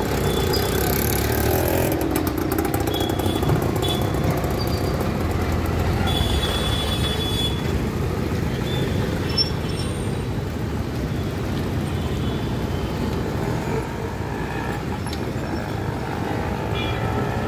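Street traffic: motorcycle and auto-rickshaw engines running past over a steady traffic rumble.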